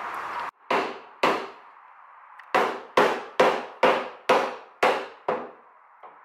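Hammer striking the relief-cut steel tabs of a BMW E36 M3's wheel arch, bumping the fender lip outward. There are about nine sharp metal blows that ring briefly, two early on and then a quick run of about two blows a second.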